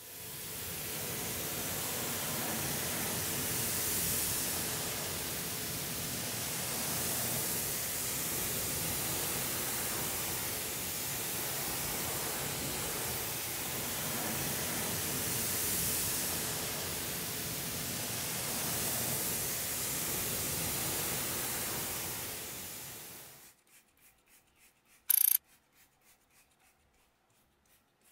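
Pressure washer jet spraying a car wheel and tyre: a steady hiss of water that cuts off about 23 seconds in. About two seconds later comes a single short spritz, a trigger-spray bottle of wheel cleaner.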